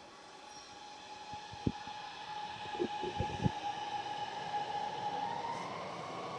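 Automated electric subway train pulling into an elevated station: a steady electric whine that grows louder and steps up in pitch about five seconds in, with a few dull knocks near the middle.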